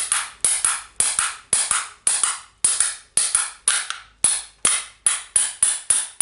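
Hammer blows on metal, about four a second in an even run, each giving a short metallic ring, driving a part into the Makita DGA452 angle grinder's gear head until it is fully seated.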